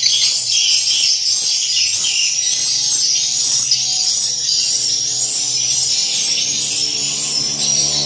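Swiftlet calls inside a swiftlet house: dense, high-pitched twittering and rasping chirps repeating rapidly, over a low steady hum.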